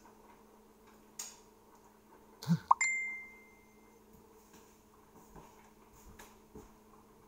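A dull knock, then a sharp metallic clink that rings on with a clear tone for about a second: metal cookware or a utensil striking a pan on the stove. A few faint ticks before and after.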